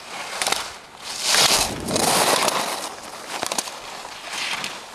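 Slalom ski edges scraping and carving on hard-packed snow through turns, loudest in a long scrape starting about a second in, with a few short sharp clicks around it.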